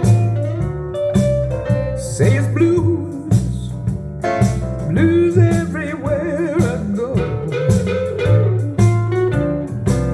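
Blues song playing, with guitar, a bass line and a sung vocal.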